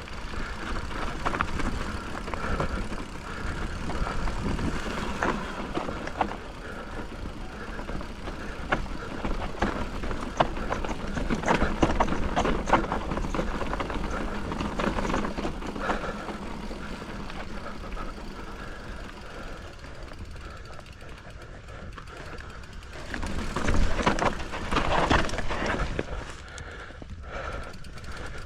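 Mountain bike riding down a rough, rocky, gravelly trail: tyres running over rock and loose gravel and the bike rattling with frequent knocks over bumps. A louder surge of noise comes near the end.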